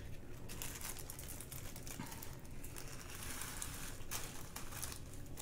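Small plastic packets of diamond painting drills crinkling faintly as they are handled, with light rustles and small ticks.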